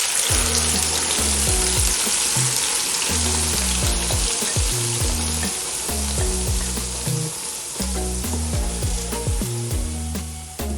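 Blended tomato and pepper purée hitting hot palm oil in a pot, bursting into a loud sizzle that starts suddenly and slowly dies down. Background music with a steady bass beat plays underneath.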